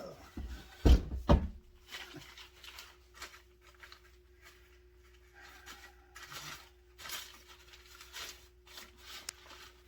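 Fishing rod and its shipping packaging being handled as it is unboxed: two sharp knocks about a second in, then soft rustling and scraping of cardboard and the rod case.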